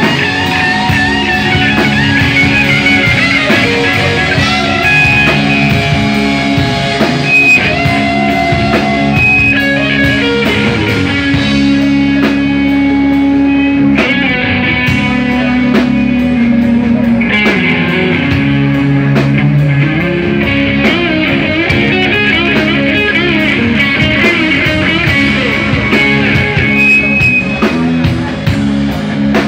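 Live rock band playing a loud jam: electric guitar over a drum kit.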